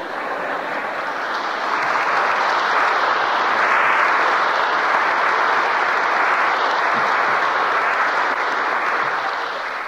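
Church congregation applauding: a steady wash of clapping that swells over the first couple of seconds, holds, and dies away near the end, heard on an old AM radio broadcast recording.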